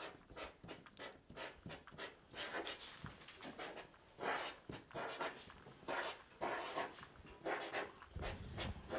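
A marker pen writing on paper: short, irregular scratchy strokes as letters are written out one after another.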